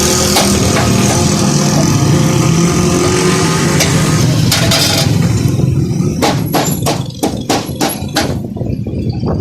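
A motor engine runs amid loud street noise for about six seconds. Then comes a quick run of sharp clicks or knocks.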